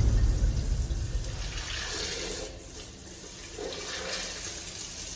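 Water rushing steadily with a hiss in a toilet fixture. A low boom fades out over the first second or two.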